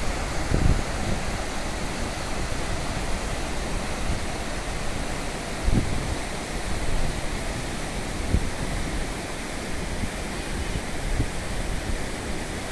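Jaldhaka River rushing over boulder rapids: a steady, even white-water roar. A few brief low thumps stand out, the loudest about half a second in and just before six seconds.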